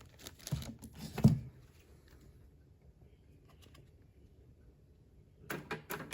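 Clicks and clunks from a Pioneer cassette deck's mechanism and controls being worked by hand, a cluster in the first second and a half with the loudest clunk about a second in, then a pause and another run of clicks near the end.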